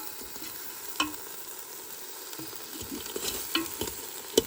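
Whole catfish sizzling in an air fryer basket while being turned over, with a sharp click about a second in, a few light utensil clicks later and a sharper knock near the end.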